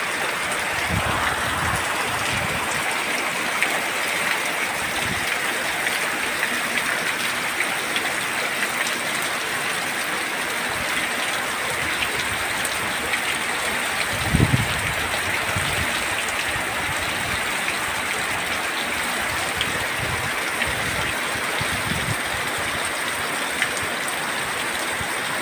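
Heavy rain pouring steadily in a strong wind, a dense even hiss, with a few short low gusts of wind buffeting the microphone, the strongest about halfway through.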